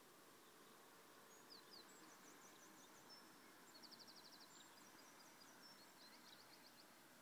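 Faint songbird singing: a run of high chirps and quick trills, one fast trill about halfway through, over a faint steady hiss.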